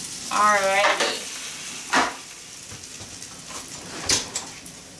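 Barbecue-sauced chicken legs sizzling on a hot metal sheet pan straight out of the broiler, a steady spitting hiss. A sharp clatter about two seconds in as the pan is set down, and a smaller knock about four seconds in.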